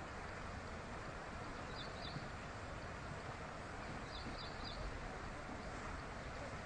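Steady outdoor background hiss, with a small bird chirping in quick groups of two or three high notes, about two seconds in and again around four seconds.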